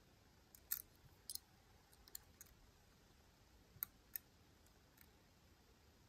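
Faint metallic clicks of a lock pick working inside a Miwa U9 lock, about six sharp ticks spread over the first four seconds.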